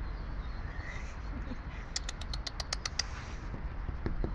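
A red squirrel's claws clicking on wooden boards as it moves: a quick run of about ten sharp clicks about two seconds in, over a low rumble.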